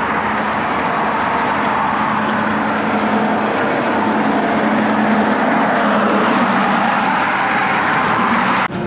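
Steady loud rush of highway traffic and headwind on a cyclist's camera. It cuts off abruptly near the end.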